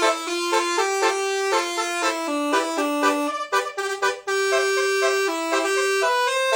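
Basuri musical vehicle horn playing a melody: a run of short quick notes mixed with a few longer held notes.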